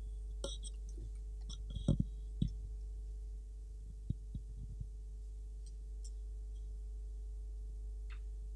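Steady low electrical hum from the hall's sound system, with a few soft knocks and taps in the first half, the loudest about two seconds in.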